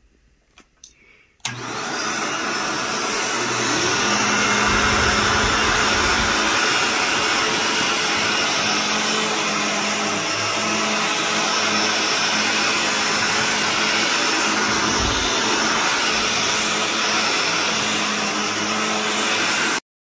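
Shark Navigator Lift-Away upright vacuum cleaner switched on about a second and a half in, then running steadily as it is pushed over a rug to pick up dog hair. The sound cuts off abruptly just before the end.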